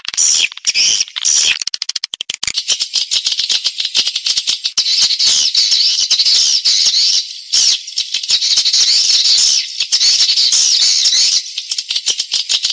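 Recorded swiftlet lure call of edible-nest swiftlets: a dense, fast, high-pitched twittering of chirps and rapid clicks with short breaks, played to call swiftlets into a bird house.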